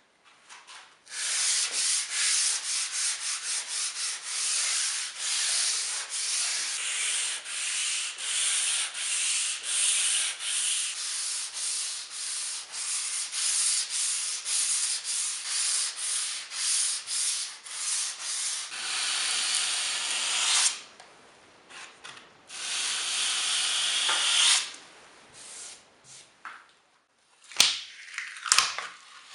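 Hand sanding along the dadoes cut into plywood strips, smoothing the grooves: rhythmic back-and-forth scraping strokes at about two a second, then a pause and a steadier stretch of sanding. A couple of sharp wooden knocks near the end as the strips are handled.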